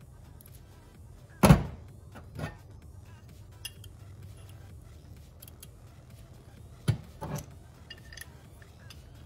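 Metal parts of a connecting rod and its bearing shells clunking on a metal workbench as they are handled and set down: a loud knock about a second and a half in and another near seven seconds, each followed by a lighter one, with small clinks between.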